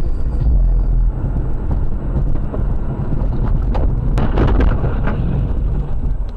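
Motor vehicle driving, a steady low engine and road rumble with wind buffeting the microphone, and a louder rush of noise about four seconds in.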